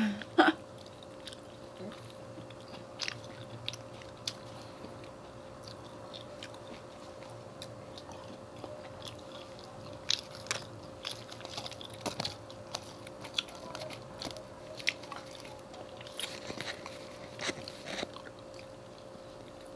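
Two people eating KFC french fries and fried food with their fingers: scattered close-up chewing, biting and light crunching, with one louder click about half a second in and more frequent bites in the second half. A faint steady hum runs underneath.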